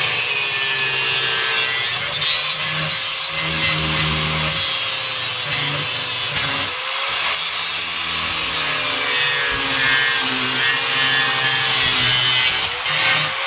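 Power tool cutting or working wood: a steady motor whine that dips and rises with the load over a loud rasping noise.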